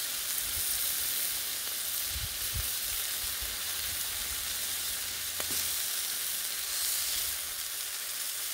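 Tri-tip steaks sizzling on a hot Blackstone flat-top steel griddle: a steady, even hiss of meat searing.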